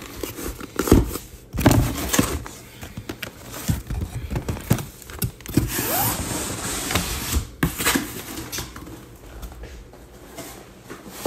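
Sealed cardboard boxes of trading cards being handled and set down on a table: irregular taps, knocks and scrapes with some rustling.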